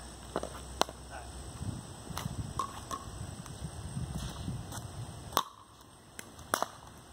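A pickleball rally: sharp pocks of paddles hitting the plastic ball about every one to one and a half seconds, with lighter ticks in between.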